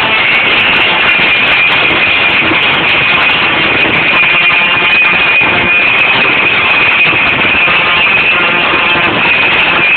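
Live rock band playing loud on stage, electric guitar and bass guitar through the PA, a dense, unbroken wall of sound.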